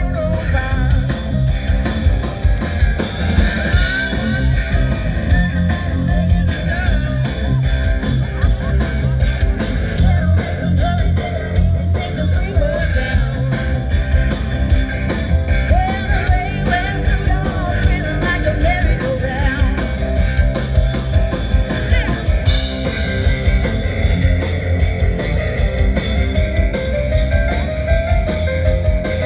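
A live band playing a rock song, with guitars and drums keeping a steady beat.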